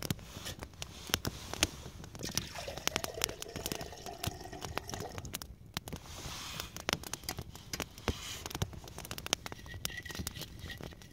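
Small twig campfire crackling, with frequent sharp pops and snaps at irregular intervals.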